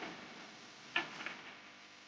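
A single sharp click about a second in, followed closely by two fainter ticks, over low background hiss.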